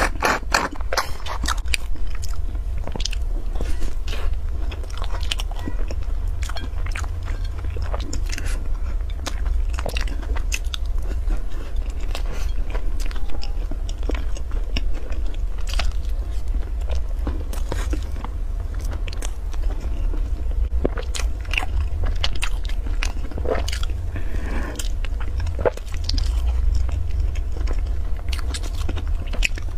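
Close-miked eating: biting and chewing a soft cream-filled bread roll coated in meat floss, with many small crunches and crackles, over a steady low hum.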